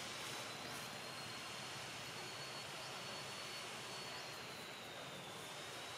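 Steady forest ambience: a continuous high, thin insect drone over a soft hiss, with a few faint short chirps.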